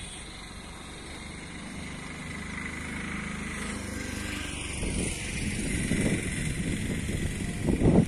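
A motor vehicle's engine running steadily and growing louder over several seconds, with low gusty rumbling on the microphone and a loud thump-like burst near the end.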